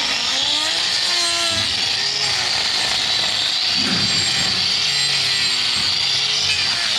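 A power tool cutting, with a steady loud rasping hiss and some faint gliding tones over it.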